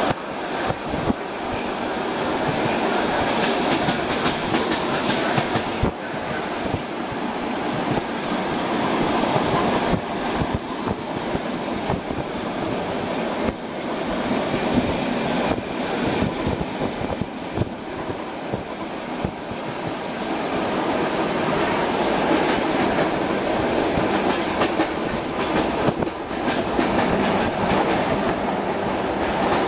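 ER2R electric multiple unit running at speed: a steady rumble of wheels on rails, heard from inside the carriage, with frequent irregular clicks and rattles.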